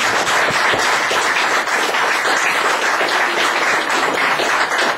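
Audience applauding: many people clapping at once, a dense, steady patter of claps.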